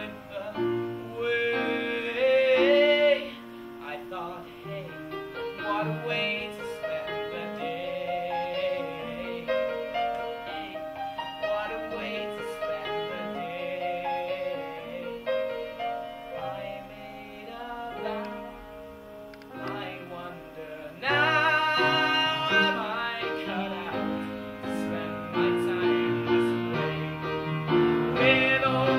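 A man singing a musical-theatre ballad with piano accompaniment. A sung phrase ends about three seconds in, the middle is a softer passage, and the voice comes back loud about 21 seconds in.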